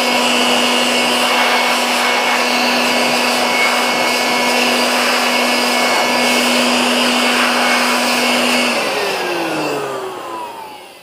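Handheld electric air blower running steadily at full speed, a motor whine over rushing air, blowing dust out of an opened voltage stabilizer. About nine seconds in it is switched off and winds down, its pitch falling.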